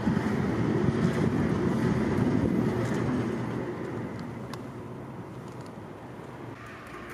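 A passing road vehicle: a low rumble that swells over the first few seconds and then slowly fades away.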